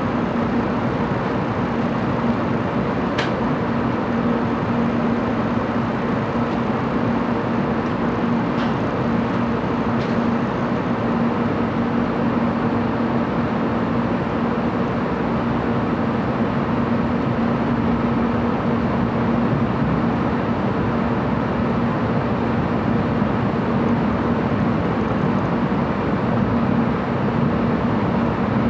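Cabin noise inside a 700 series Shinkansen car as it starts to pull out of the station: an even rushing noise under a steady low hum. Three faint clicks come in the first ten seconds or so.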